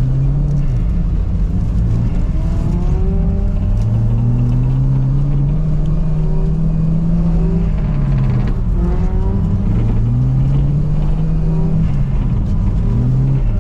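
Car engine revving up and down repeatedly while drifting on ice. Its pitch climbs over a few seconds and then drops back sharply, about four times: briefly at the start, then two long climbs in the middle, then a short one near the end.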